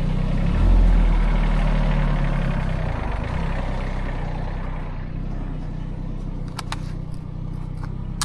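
Vehicle engine running, swelling briefly about a second in, then its sound slowly fading as the vehicle pulls away. A few light clicks near the end.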